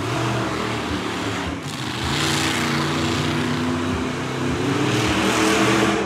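Monster truck engine revving hard, its pitch rising and falling under loud exhaust noise, with a climbing rev near the end.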